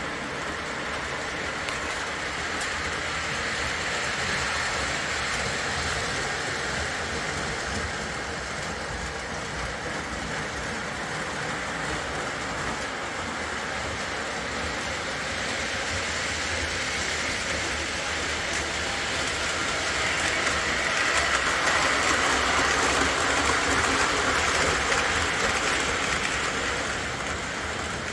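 Postwar Lionel O gauge model trains running on three-rail track: steady running noise of wheels and motors, louder from about twenty seconds in and easing near the end.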